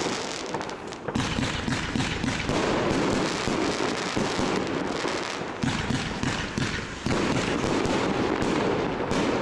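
Multi-shot consumer fireworks battery firing shell after shell into the air, each one bursting with pops and crackling. The firing is a dense, continuous run that gets louder about a second in and again at about seven seconds.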